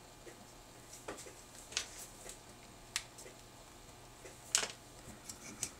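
Scattered light clicks and taps of a plastic dental model and tooth die being handled and seated, with sharper clicks about one, three and four and a half seconds in.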